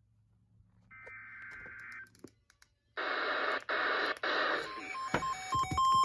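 NOAA weather radio receiving an emergency alert for a flood warning. First comes a burst of digital alert-header data tones about a second long, then about a second and a half of static hiss. Then the receiver's alert beeps start, two tones pulsing on and off in turn.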